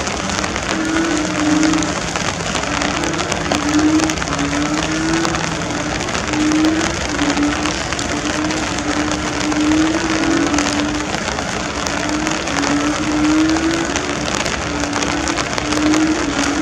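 Heavy torrential rain pouring steadily, with a dense patter of drops. A low wavering tone repeats about once a second throughout.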